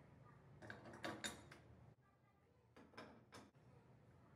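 Faint, light metallic clicks and clinks of gas-hob burner caps and rings being set back onto their burner bases on a stainless-steel stove. There is a small cluster about a second in and two more clicks around three seconds in.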